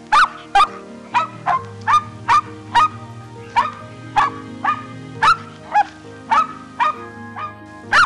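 Short yelping animal calls repeated about twice a second, each dropping sharply in pitch, over background music with sustained low notes.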